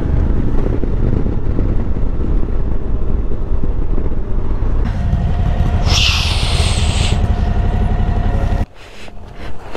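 Suzuki V-Strom motorcycle riding on tarmac, its engine and road noise heavily overlaid by wind rushing over the camera microphone. About six seconds in a brief high hiss lasts about a second, and the noise drops off sharply near the end.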